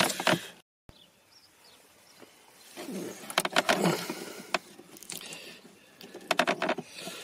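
Small plastic clicks, taps and scraping from hands and a small screwdriver working a wiring plug out of a car's glove-box light housing, in irregular bursts with a quiet stretch early on.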